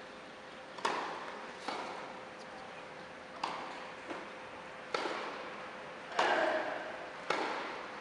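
Tennis ball hit back and forth with rackets in a rally on grass: about six sharp pops a second or so apart, each ringing briefly in the stadium, with a fainter bounce between two of them.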